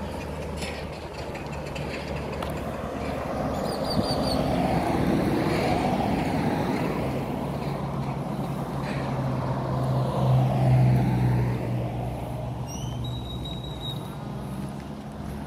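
Road vehicle running: a low engine hum over a steady rush of road noise, swelling about halfway through and fading again toward the end.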